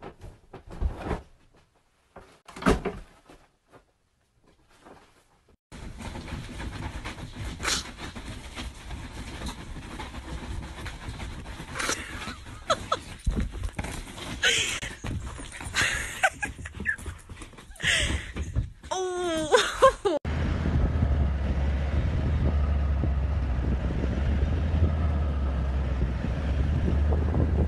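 A few dull thuds on a bed, then a stretch of rustling and sharp knocks with a short wavering cry, then the steady low rumble of a vehicle driving on a dirt road with wind on the microphone.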